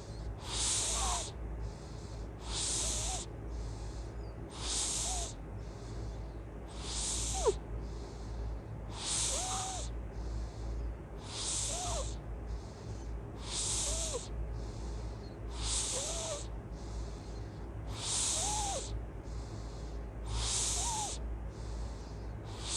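Loud snoring, one hissy breath about every two seconds, each with a faint whistle. A single sharp click sounds about seven and a half seconds in, over a steady low hum.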